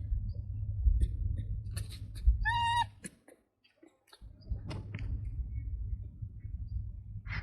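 A monkey's short, high squeal about two and a half seconds in, over a low rumble and scattered clicks.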